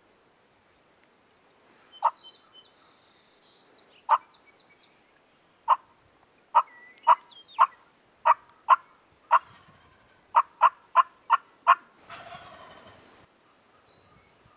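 A string of about fourteen short, sharp turkey clucks and cutts, irregular at first and then quickening into a run of five near the end, with small birds chirping high above them. A rasping, noisy burst about a second long follows the last cluck.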